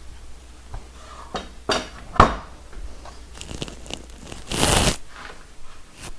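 Handling noises as a timber lintel and tools are worked: scattered knocks and clicks, a sharp knock about two seconds in, and a short scraping rustle near five seconds.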